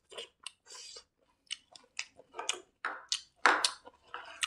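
Close-miked chewing: a run of short wet clicks and crackles from the mouth, with a sharp crunch about three and a half seconds in.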